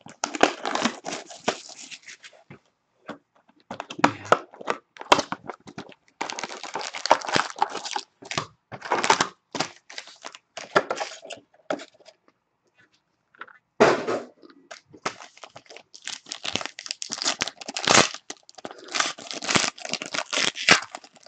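Panini Spectra football card box being opened and its foil-wrapped packs handled: irregular bursts of crinkling and tearing, with a foil pack wrapper torn open near the end.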